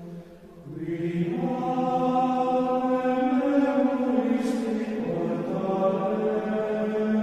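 Sacred chant sung by voices, long held notes stepping slowly in pitch; after a short breath a new phrase begins about a second in.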